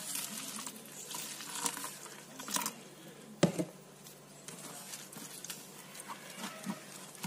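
Warm water pouring from a plastic container onto rolled oats in a stainless steel bowl, then a spoon stirring the wet oats with small scrapes and clicks against the bowl. A sharp knock comes about three and a half seconds in.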